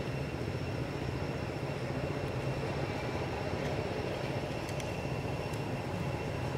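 Steady low rumbling outdoor background noise, with a faint steady high tone above it and a few small ticks near the end.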